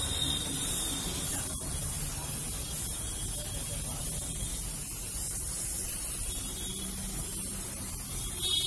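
Aerosol spray-paint can hissing steadily as paint is sprayed onto a vehicle's front grille.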